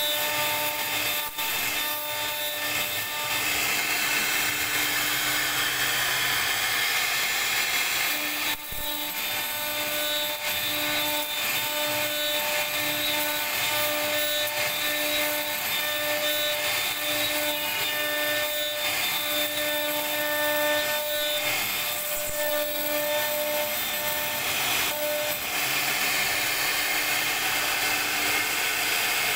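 CNC router spindle cutting a carved relief into wood: a steady whine with a pulsing tone, about once a second for much of the time, over the hiss of the bit chewing through the wood.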